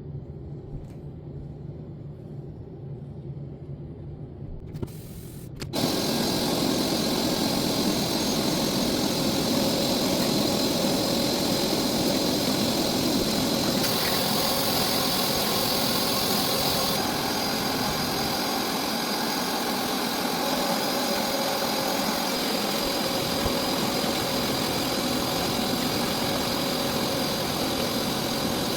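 Hoover carpet cleaner switching on about six seconds in and running steadily with a loud whirring suction noise, which turns hissier for a few seconds midway. A quieter low hum comes before it starts.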